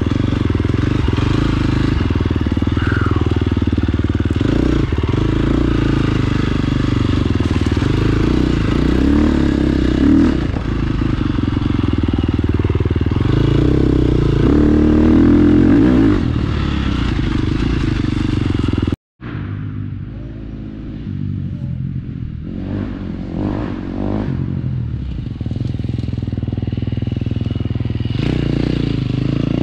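A KTM 350 XC-F's single-cylinder four-stroke engine running and revving under riding, with clatter from the bike. About two-thirds of the way through it cuts out abruptly and comes back quieter.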